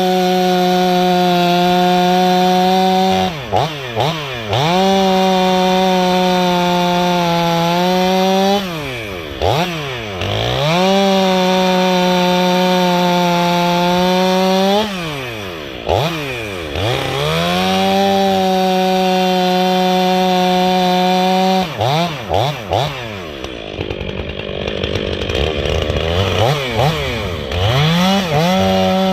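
Stihl 500i chainsaw with its muffler baffle removed, run up to full throttle and held there for a few seconds at a time, several times over, dropping back and rising again between. About three quarters of the way through the running turns rough and unsteady for a few seconds before it revs up again.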